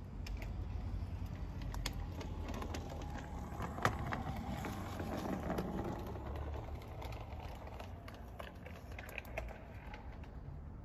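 Garden-railway model train running along the track: a low rumble with irregular clicks and ticks from wheels on the rails, swelling at the start and easing off toward the end, with one sharper click about four seconds in.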